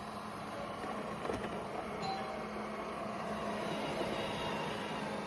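Airzeen R7 robot vacuum cleaner running: a steady motor hum with a low tone over an even hiss, growing slowly louder.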